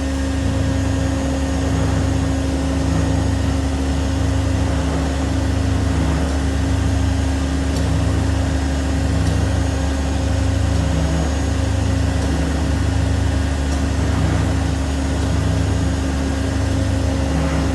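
Fasti 215-50/4 CNC folding machine running with a steady electric-motor hum and a low pulsing about once a second while its back gauge calibrates.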